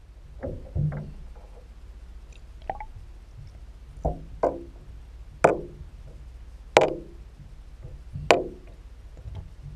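Soft plastic lure on a jig hook splashing into a tub of water and being jigged, heard through an underwater camera housing: a series of sharp plops and knocks, about one every second or so, the loudest three in the second half, over a steady low hum.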